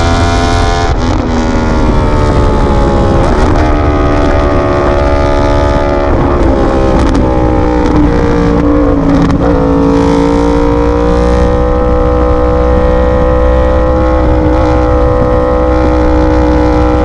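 Yamaha R1 sport bike's inline-four engine running under way. Its pitch falls steadily for about ten seconds, with a few brief breaks in the note, then holds nearly steady to the end over a low, steady rumble.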